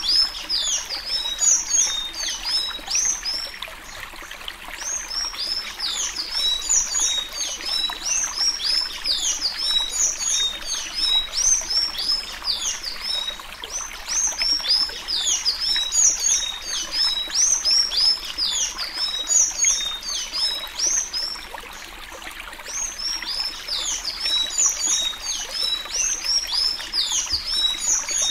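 Sanhaço tanager singing the Alagoas-style 'suí suí' song: a fast, unbroken stream of high, squeaky notes, each a quick downward slur. The song slackens briefly twice and then picks up again.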